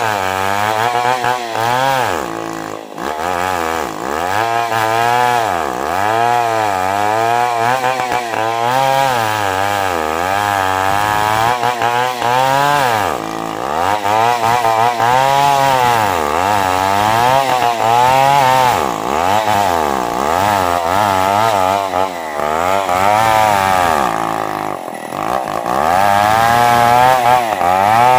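Large two-stroke chainsaw ripping lengthwise along a matoa log, the engine running hard under load. Its pitch dips and picks up again over and over, roughly once a second, as the bar works through the cut.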